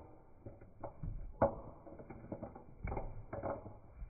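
Pomeranian eating dry kibble from a clear bowl: irregular crunches and kibble clicking against the bowl, the loudest about a second and a half in and a run of them near three seconds.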